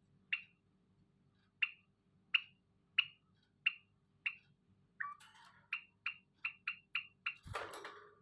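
Zebra finch giving short, sharp calls, spaced a little over half a second apart at first and then quickening to three or four a second. Near the end comes a burst of rustling with a dull thump.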